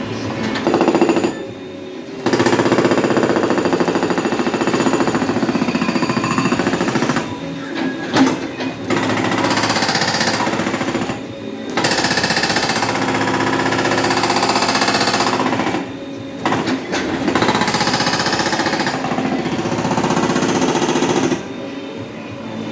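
JCB 3DX backhoe loader hammering into the road surface with a rapid, pounding jackhammer-like beat. It comes in four runs of a few seconds each, with short breaks between them as it stops and sets again.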